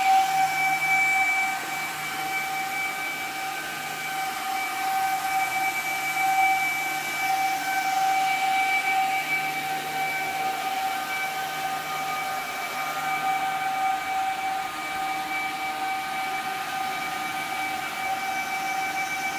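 Cooling fans of a 1000-watt FM broadcast power amplifier running: a steady whine of several held tones over a hiss of moving air.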